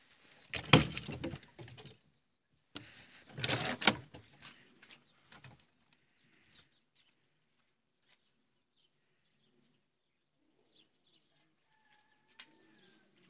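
Two bursts of loud rustling and scraping in the first four seconds, then a short chirping call near the end.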